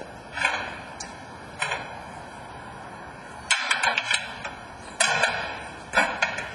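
Equipment being handled in a fire engine's storage compartment: a series of sharp knocks and clatters, several bunched together about halfway through.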